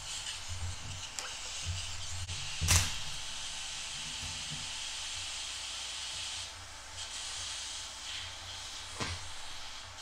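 DC scratch-start TIG arc on a Titanium Unlimited 200 fusion-tacking a steel bolt to a steel plate: a steady hiss, with a sharp click a little under three seconds in and a smaller one near the end. The hiss dips briefly just after six seconds.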